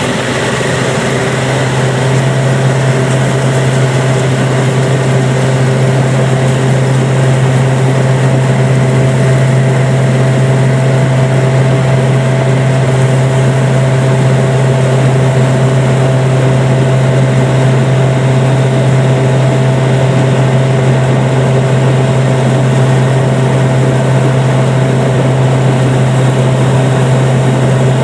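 Yanmar 4T100 rice combine harvester running steadily as it cuts and threshes rice: a loud, even engine drone with fainter steady whines above it, swelling slightly over the first couple of seconds.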